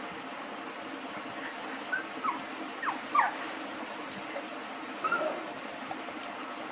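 Young puppies whimpering as they nurse: short high squeaks that fall in pitch, four in quick succession about two to three seconds in and one more about five seconds in, over a steady background hum.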